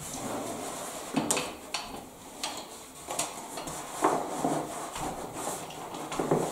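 Scattered light clicks and taps, about one every half second to a second, with soft rustling, as pasted wallpaper is handled and worked down behind a steel panel radiator with a wire-handled radiator roller.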